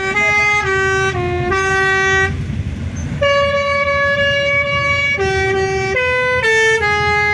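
Telolet bus horn playing a tune of stepped notes: four short notes, a pause of about a second, one long held note, then four more short notes, with the bus engine running underneath.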